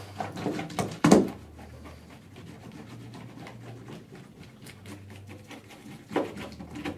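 Light clicking and scraping of a Magnepull wire-pulling magnet being worked down the face of a drywall wall to drag its partner magnet down inside the cavity. There are two short huffs of breath, one about a second in and one near the end.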